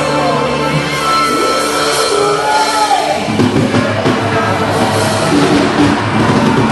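A live rock band playing, with electric guitar and drum kit. It opens on held, sustained notes, and the drums and full band come in about three seconds in.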